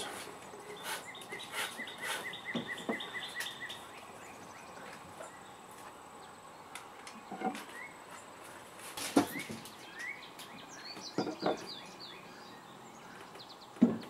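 Leather laces and a wooden tool case being handled, with a few sharp knocks and rustles as the laces are threaded through drilled holes. Birds chirp in the background: a quick run of evenly repeated chirps in the first few seconds, then short falling chirps.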